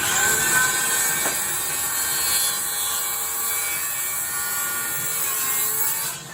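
Power saw crosscutting a pine 2x4 in half: it starts suddenly, runs steady and high-pitched through the cut for about six seconds, then is released and spins down with a falling whine near the end.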